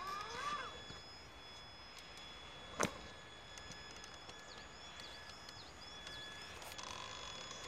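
Traxxas Summit RC truck's electric motor whining as it crawls over rock, rising in pitch in the first half-second and starting up again near the end. One sharp knock about three seconds in is the loudest moment. Small birds chirp in the background.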